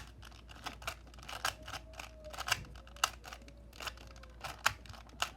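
Plastic 2x2 mini Rubik's cube being twisted fast during a speed solve: a quick, irregular run of clicks and clacks as the layers snap round.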